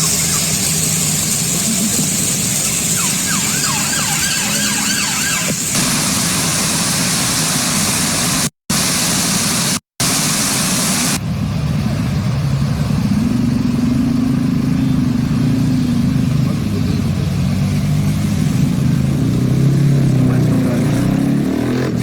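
A steady hissing rush that breaks off sharply twice, then a motor vehicle engine running with a wavering pitch from about halfway in.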